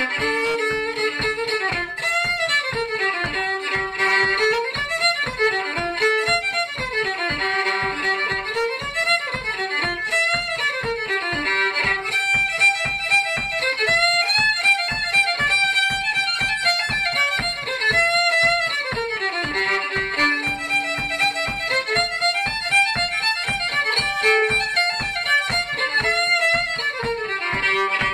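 Solo fiddle playing a lively tune in quick, even bow strokes, its melody running up and down in repeated phrases.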